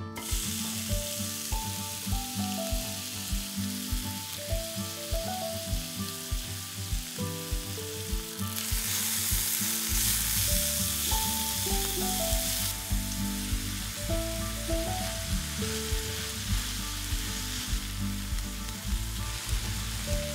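Ground pork sizzling in hot oil in a frying pan as it is stir-fried with chopsticks. The sizzle starts suddenly as the meat goes in and grows louder for a few seconds about halfway through. Background music with a steady beat plays throughout.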